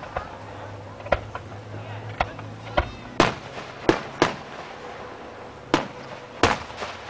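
Aerial fireworks shells launching and bursting: a string of about ten sharp bangs at uneven intervals, the loudest about three seconds in and again near the end.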